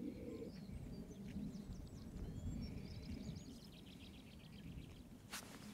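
Outdoor ambience: many faint small-bird chirps and twitters over a low, uneven rumble, with a single sharp click near the end.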